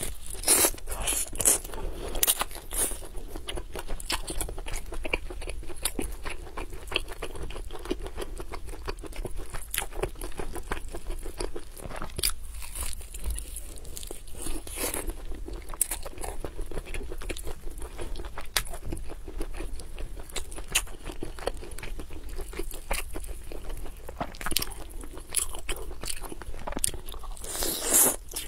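A person biting and chewing a roasted chicken leg close to the microphone, with a steady stream of quick, irregular crunching clicks.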